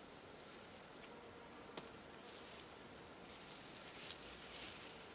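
Faint, steady high-pitched chirring of insects in the grass, with two soft clicks of hands cutting mushrooms among the stems, about two seconds in and again near the end.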